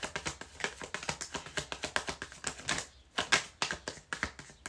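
A tarot deck being shuffled by hand: a quick run of soft card clicks and slaps, several a second, with a short lull about three seconds in followed by a sharper snap.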